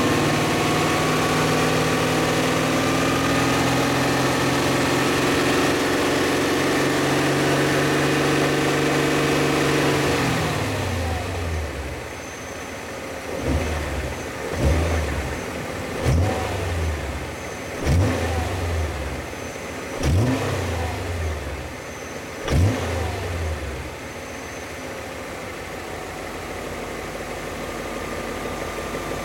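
BMW E39 M5's S62 4.9-litre V8 engine held at steady raised revs for about ten seconds, then falling back to idle. It then takes six short, sharp throttle blips a second or two apart before idling again. The owner hears a sharp knock on acceleration and at around 1500 rpm, and suspects worn rod bearings.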